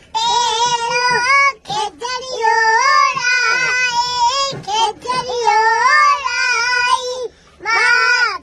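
A young boy singing with no instruments, in long held, wavering notes broken by a few short pauses for breath.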